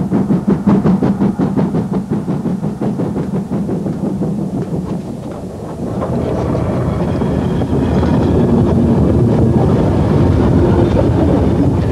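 Steam train running past with a quick, even rhythmic beat; about six seconds in the sound becomes louder and steadier.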